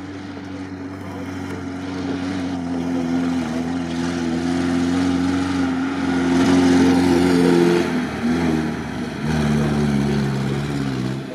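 UAZ off-road vehicle's engine running hard under load, getting louder as it comes closer. About eight seconds in the revs drop and waver, then the engine holds a lower, steady note.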